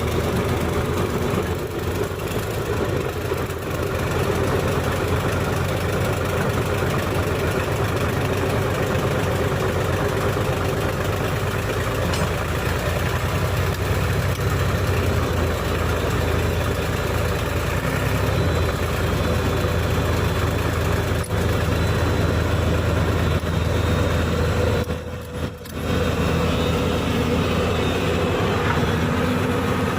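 Diesel engines of heavy earthmoving machines, a bulldozer and a backhoe, running steadily. The sound drops briefly once, near the end.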